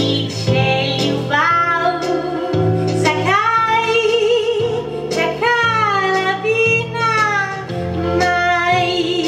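A woman singing a 1960s Slovenian love song over instrumental accompaniment, holding long notes with vibrato while steady low chords change about once a second.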